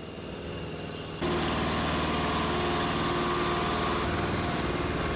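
Engines of munitions-handling vehicles running steadily at low speed. The sound steps up suddenly about a second in to a louder, steady hum with a faint whine.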